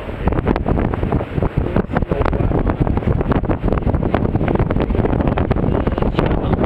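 Rushing whitewater of a river rapid, with wind buffeting the microphone in irregular gusts.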